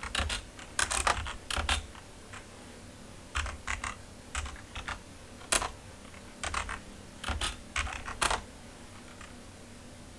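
Typing on a computer keyboard: short runs of key clicks with brief pauses between them, as a terminal command is entered.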